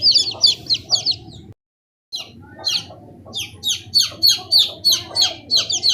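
Chicks peeping loudly: many short, high peeps that each fall in pitch, several a second. The sound drops out completely for about half a second roughly a second and a half in, then the peeping resumes.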